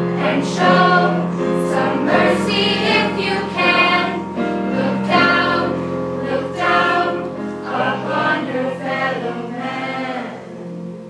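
A choir singing over instrumental accompaniment that holds long, low sustained notes. The voices stop about ten seconds in, and the accompaniment fades away after them.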